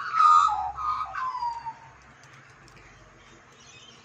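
Australian magpies calling: a short run of warbling, gliding notes in the first two seconds, then quiet.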